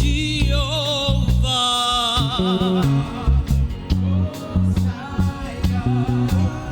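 Gospel worship music: a singer's voice with wide vibrato carried over a band with steady bass notes and regular drum beats.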